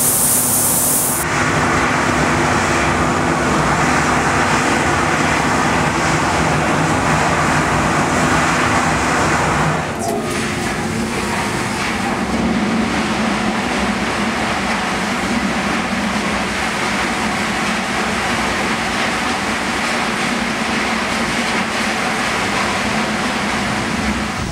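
Taconite pouring from a loadout chute into moving railroad ore cars: a loud, steady rush of falling material mixed with rail-car and machinery noise. About ten seconds in, the sound changes to a steadier rumble.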